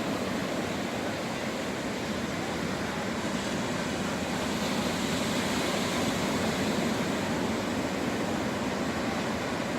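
Beach surf and wind, a steady rushing noise that swells a little about five seconds in.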